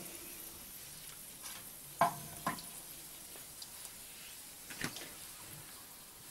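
Small hot chili peppers sizzling in hot vegetable oil in a frying pan, a steady high hiss. A wooden spatula stirring them knocks against the pan three times, loudest about two seconds in.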